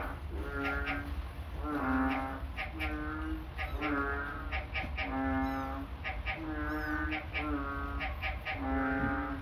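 Kittens meowing over and over, short steady-pitched cries about once a second.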